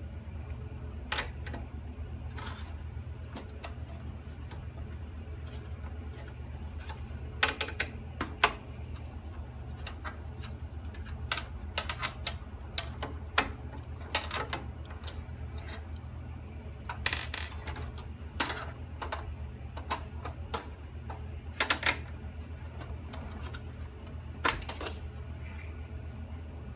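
Irregular small clicks and taps of a screwdriver and parts against a desktop computer's case while its motherboard is being unscrewed and removed, over a steady low hum.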